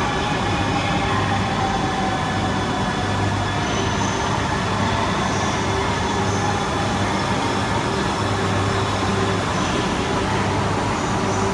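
Shinkansen train moving at the station platform: a steady rumble and hum, with a faint whine falling in pitch through the first half as the train slows.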